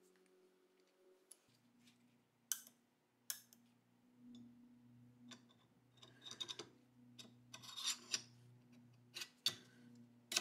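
Steel parts of a Colt Model 1903 Pocket Hammer pistol being fitted back together by hand: two sharp metallic clicks a few seconds in, then scraping steel-on-steel and small clicks as the slide goes onto the frame, with more clicks near the end.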